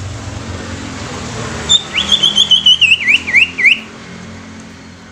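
Greater green leafbird (cucak ijo) singing one phrase of about two seconds, starting a little under two seconds in: a quick run of high chirping notes, then three downward-swooping whistles. A low rumble lies underneath in the first half.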